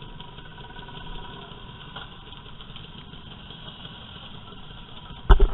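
Motor scooter engines idling steadily in a stopped group. Right at the end a sudden burst of loud knocks cuts in.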